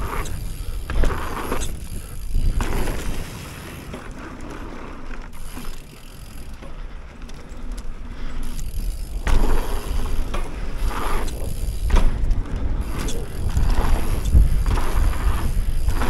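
Mountain bike being ridden over dirt jumps and pump-track rollers: tyres running on dirt, with a heavy wind rumble on the microphone. It gets quieter a few seconds in, then louder again from about halfway through.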